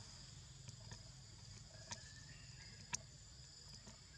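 Steady high-pitched insect chorus, with two sharp clicks about two and three seconds in.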